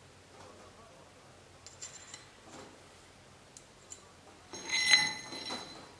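Steel ruler clinking against the forged steel drift and anvil: a few light taps, then a louder ringing clink about five seconds in.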